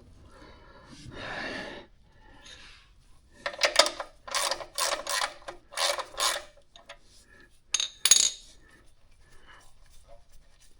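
Short metallic scraping and rubbing strokes, about six in quick succession and then one more a little later, as the oil drain bolt is worked loose by hand from the oil pan.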